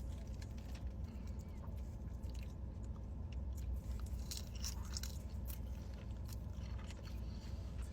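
Close-up chewing and biting of food, with many small wet mouth clicks scattered throughout.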